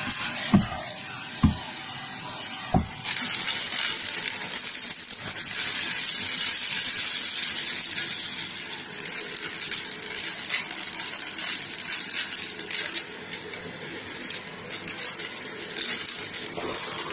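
Shark vacuum cleaner running with its crevice nozzle, sucking up popcorn kernels and small craft bits, with scattered ticks of debris going up the nozzle. There are a few hard knocks in the first three seconds as the nozzle bumps the plastic tub, and the suction hiss grows louder about three seconds in.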